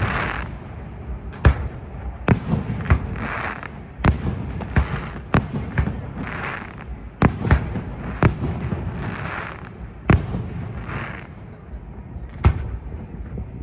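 Fireworks display: sharp bangs of bursting shells about every second, unevenly spaced, with a hissing fizz after several of them.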